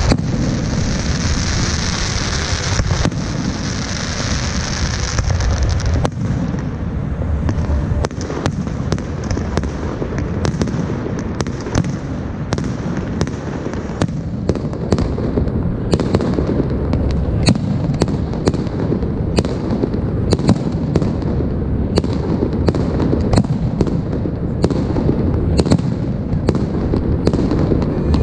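Fireworks going off continuously: a steady low rumble of bursting shells with many sharp cracks, which come thicker in the second half. A high hiss sits over the first few seconds.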